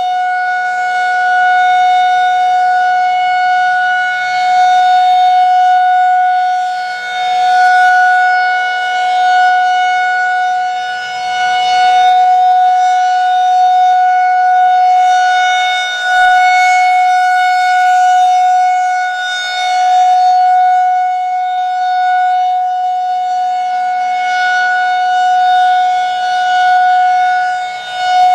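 Federal Signal 2001-SRNB rotating electromechanical warning siren sounding a steady single tone during a nuclear-plant siren test. Its loudness swells and fades about every four seconds as the rotating horn sweeps past.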